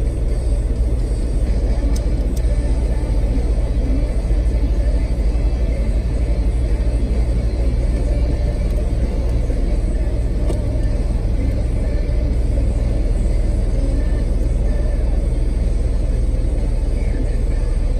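Steady low rumble of an off-road vehicle's engine and tyres heard from inside the cab as it drives slowly over a snow-covered dirt trail. A couple of faint clicks come about two seconds in.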